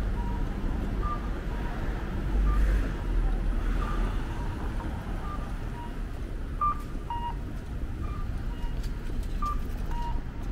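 Street traffic with an accessible pedestrian crossing signal's electronic guide tone: a higher note then a lower one, repeating about every second and a half. A vehicle passes, louder, about two to three seconds in.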